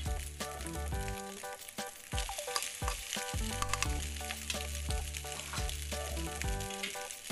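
Eggs and sliced onion sizzling in hot oil in a nonstick frying pan. A wooden spatula scrapes and knocks against the pan, and cooked rice is tipped in partway through. Background music with a bass line plays under the frying.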